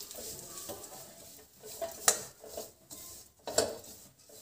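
Perforated steel spatula scraping and clinking against a steel kadhai while stirring grated dried coconut as it dry-roasts, with a few sharp clinks, the loudest about two seconds in and again a second and a half later.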